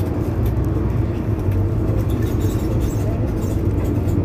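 Mercedes-Benz Citaro C2 Hybrid city bus idling at a stop, a steady low engine rumble.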